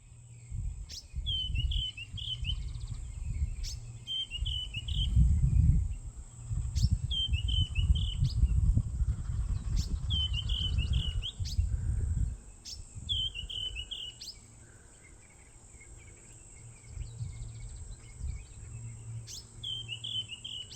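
A bird repeats a short phrase of several quick notes about every three seconds, over a steady high-pitched insect drone. A loud low rumble runs under it for the first half and then fades to a faint hum.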